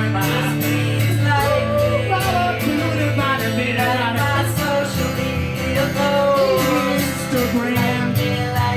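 Music: a comedy song with a voice singing a melody over instrumental accompaniment.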